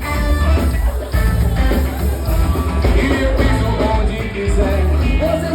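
A band playing a song with singing, over a strong bass.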